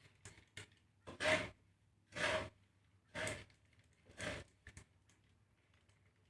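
Dry seed mix of millet and black glutinous rice being stirred in a pan while dry-roasting. It makes a short rattling swish about once a second, four strokes in a row, with a few light ticks between.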